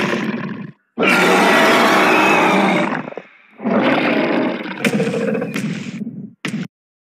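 Tyrannosaurus rex roar sound effect from a green-screen dinosaur clip: long roars, one starting about a second in and another about halfway through, then a short final burst before the sound cuts off.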